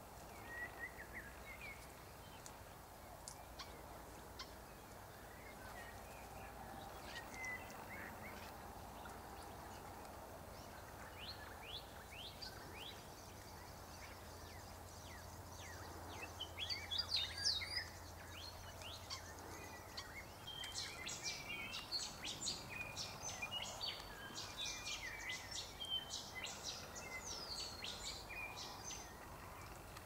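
Birds chirping and calling: scattered short high chirps at first, a brief louder burst of calls about 17 seconds in, then a busy run of rapid chirps for most of the last ten seconds.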